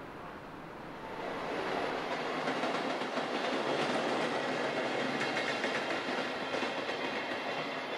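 An electric locomotive hauling a single Taki 44000-series gasoline tank wagon passes on the rails, wheels clattering over the rail joints. The noise swells about a second in and eases off near the end as the train moves away.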